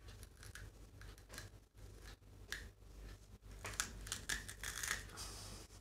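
Faint, irregular crunching of raw bitter gourd being bitten and chewed.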